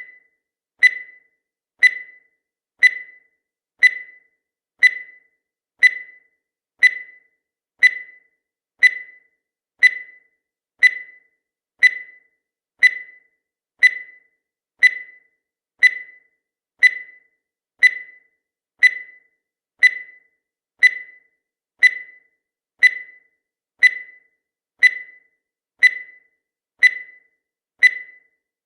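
Countdown timer sound effect: a short, high blip once every second, each dying away quickly.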